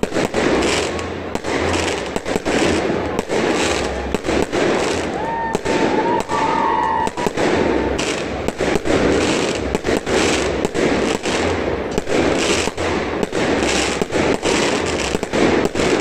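Fireworks going off in quick succession: a dense, steady run of bangs and crackles, a few a second.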